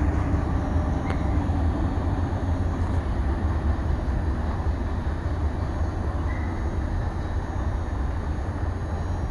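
Union Pacific freight train of tank cars rolling away along the track: a steady rumble of wheels on rails that slowly fades.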